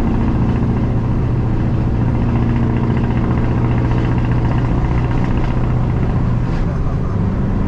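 Scania R580's V8 diesel engine running steadily, heard from inside the truck's cab; its note shifts slightly near the end.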